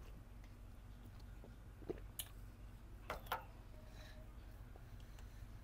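A few soft clicks and mouth sounds over a low steady hum, as a shot of gin is swallowed and the small shot glass is set back down; the clicks come in two pairs, about two and three seconds in.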